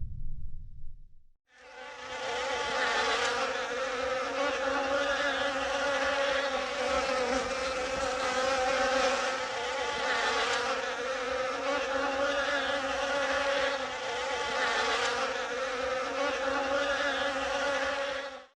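A flying insect buzzing steadily close by, with slight rises and falls in loudness, starting about a second and a half in and cutting off at the end. Before it, the tail of a low rumble fades out.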